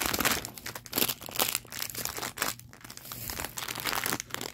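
Crinkly wrapping being crumpled and pulled open by hand: a dense, irregular crackling that comes and goes in short runs.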